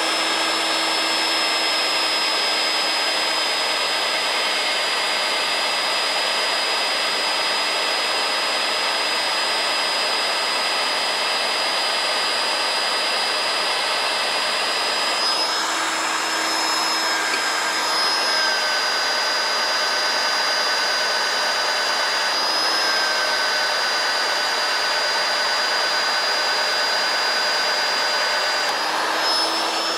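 Rotabroach Panther magnetic drill running, its annular cutter cutting a hole through a steel beam. It gives a steady high motor whine over a cutting hiss. The pitch sags a little under load partway through and rises again near the end.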